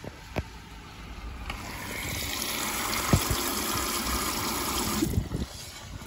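Water rushing through a Hotpoint front-loading washing machine. The sound builds up, holds steady, and stops abruptly near the end, with a single knock about three seconds in.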